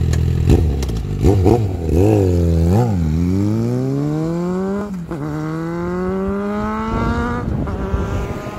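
Suzuki Bandit inline-four motorcycle running through a short Akrapovic canister on a new link pipe. It gives a few quick throttle blips, then pulls away, revving up, shifting about halfway through and revving up again in the next gear before easing off.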